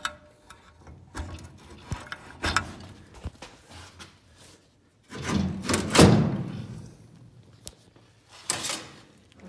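Clunks, scrapes and knocks of a metal parachute mount being handled and seated on the back of a car, with a scraping slide that ends in one loud thunk about six seconds in and another knock near the end.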